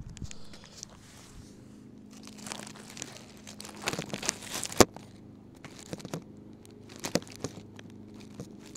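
Crunching and crackling of playground wood chips close to the microphone, with scattered sharp clicks and knocks, the loudest a little under five seconds in, over a faint steady hum.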